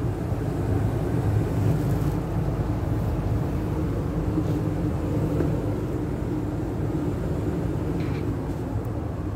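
A 2012 Carrier gas furnace running in heat mode with its inducer motor on and burners lit, a steady hum and rush with a low drone.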